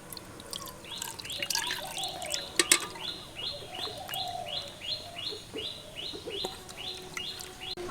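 A bird calls in a rapid run of short, identical chirps, about three a second. Under it come a few clinks and water being poured into a bucket.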